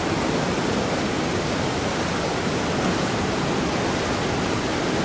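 Steady, loud hiss of steam escaping from the standing 01 202 Pacific steam locomotive, even and unbroken throughout.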